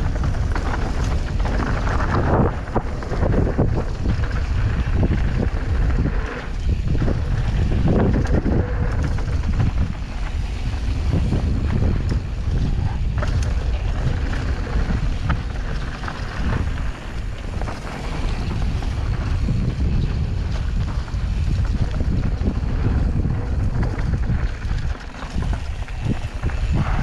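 Wind buffeting the on-bike camera's microphone during a fast mountain-bike descent of a dirt singletrack, under a low rumble of tyres on dirt and a constant fine rattle from the bike over rough ground.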